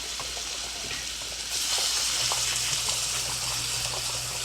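Kitchen tap turned on about a second and a half in, water then running steadily into the sink.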